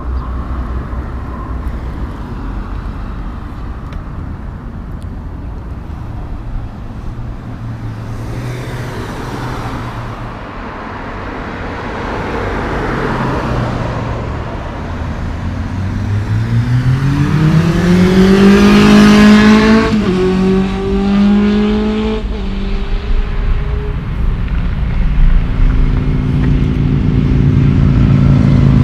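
Road traffic going by: vehicles pass, then one engine speeds up loudly past the microphone, its pitch climbing and dropping at a gear change, and a heavy truck's engine drones near the end.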